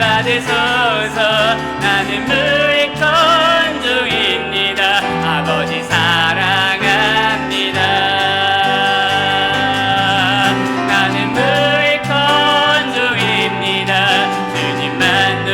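Worship band playing a slow gospel song, with piano and bass under a wavering melody line.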